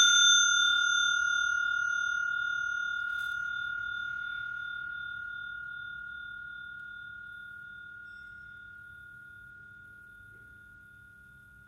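Crane Suzu bicycle bell ringing on after a single strike: one clear high tone with fainter higher overtones, with a slight wavering, dying away slowly and evenly over more than ten seconds.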